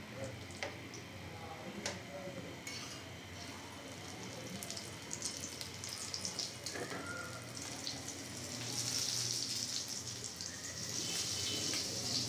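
Shami kebabs sizzling in shallow oil on an iron tawa, with a few sharp clicks of a metal spatula against the pan in the first two seconds. The sizzle grows louder about eight or nine seconds in.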